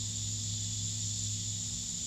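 Steady high-pitched drone of an insect chorus, unbroken and without rhythm, over a constant low hum.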